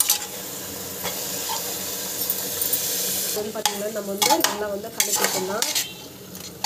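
Chicken pieces and ground masala sizzling in hot oil in a pressure-cooker pot, stirred with a steel ladle that scrapes and clinks against the pot several times, mostly in the second half.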